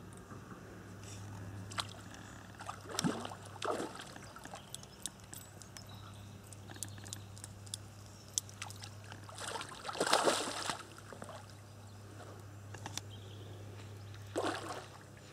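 A hooked carp splashing and thrashing at the surface close to the bank while being played towards the net. There are several splashes, the biggest and longest about ten seconds in and another near the end.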